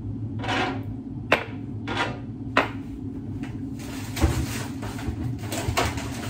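Kitchen clatter: about half a dozen separate knocks and clacks of dishes and utensils being handled and set down on the counter, over a steady low hum.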